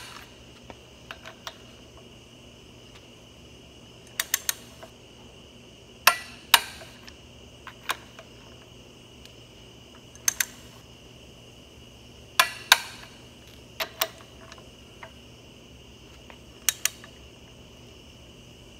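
Torque wrench on tractor brake-cover bolts, giving sharp metallic clicks, singly and in close pairs, every few seconds as each bolt is pulled up to its 70–75 ft-lb torque. A faint steady high-pitched whine runs underneath.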